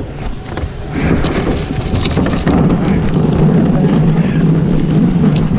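Rear-loader garbage truck's diesel engine running with a steady low hum, mixed with the clatter and rumble of a wheeled plastic trash cart being grabbed and handled. The hum swells about halfway through.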